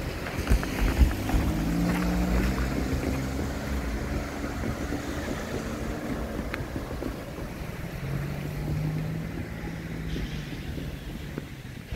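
A vehicle's engine or motor humming under a low rumble of wind on the microphone, the hum strongest in the first few seconds and again near the end.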